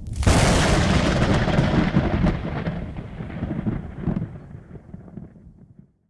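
A thunderclap: a sudden loud crack about a quarter second in, then a long crackling rumble that fades away over the next five seconds.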